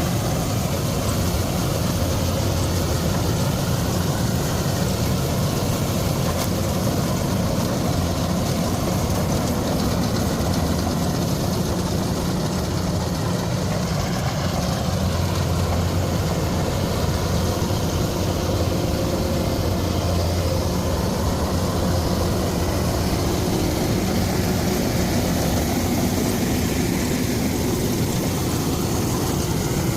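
Heavy farm-machinery engine running steadily at an even speed, a deep continuous drone with no revving or pauses.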